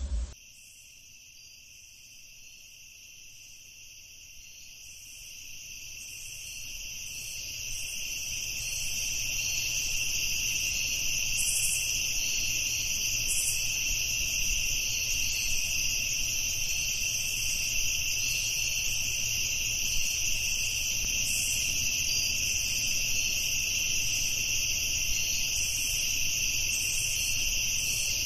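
Steady chorus of crickets, a continuous high trilling that fades in over the first several seconds and then holds level.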